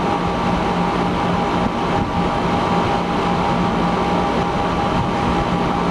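Split air conditioner's outdoor unit running steadily, compressor and condenser fan humming with a constant low tone and a higher whine, as R22 refrigerant is charged into it and the suction pressure climbs.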